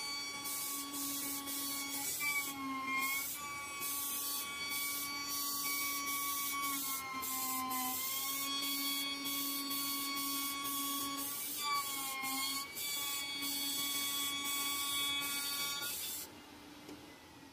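CNC router spindle with a small end mill milling closed-cell polyethylene foam: a steady high-pitched whine over a hiss of cutting. The pitch dips briefly several times, and the sound stops about a second before the end.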